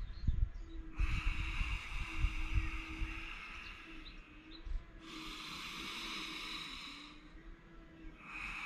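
A man breathing slowly and deeply in a rib-cage breathing exercise: long breath sounds of about two seconds each, with pauses between them, three in all, the last starting near the end.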